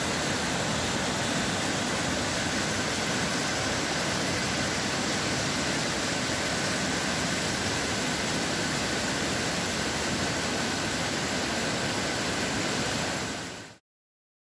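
Steady rushing of a river in flood, its water spilling over rocks, which fades quickly and cuts off near the end.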